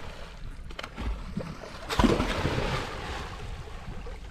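A person jumping from the bow of a wooden outrigger boat into the sea, a loud splash about two seconds in that churns and fades over about a second. Water moving against the hull and wind on the microphone underneath.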